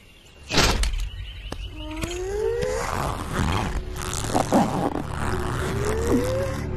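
Cartoon tension music and sound effects: a sudden hit about half a second in, then a low rumbling drone with rising, sliding tones.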